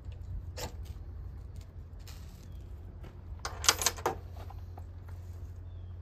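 Ferro rod struck with the spine of a Victorinox Fieldmaster's saw blade: one short scrape about half a second in, then a quick run of harder scrapes a little before the four-second mark, throwing sparks that light fatwood shavings.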